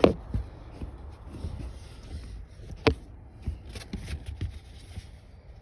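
Handling noises as a foam cover is fitted back under the dashboard: soft rubbing and scraping with a few light knocks, and one sharp click a little under three seconds in.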